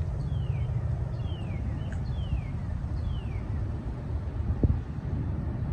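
A bird singing a series of five downward-slurred whistled notes, about one a second, over a steady low rumble. A single short low thump comes near the end.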